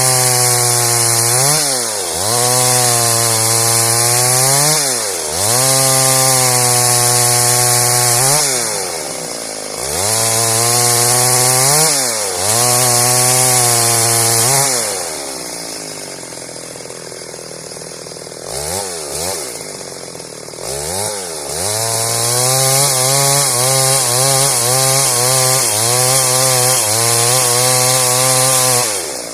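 Stihl MS 382 two-stroke chainsaw running at full throttle through a run of cuts in wood, its revs falling back briefly between them. Midway it drops to a lower, quieter running with two short revs, then holds full throttle through a long cut that stops suddenly near the end.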